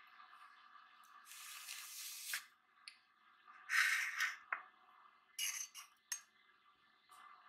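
Dishes being handled: a few short scrapes of a plate and a metal pizza pan, the loudest about four seconds in, with light clicks and clinks between them.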